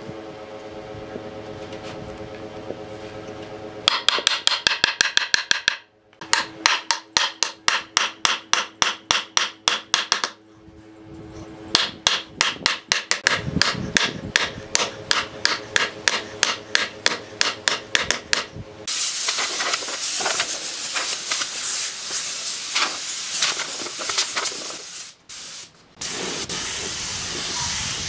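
Claw hammer striking a scrap wood block laid on a glued slab tabletop, rapid even blows at about four or five a second in two long runs, seating the top onto a tree-stump base. About 19 seconds in, the steady hiss of a compressed-air spray gun spraying a clear finish takes over, with a short break near the end.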